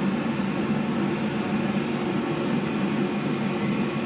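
Steady whirring hum of an air fryer's fan running as it cooks.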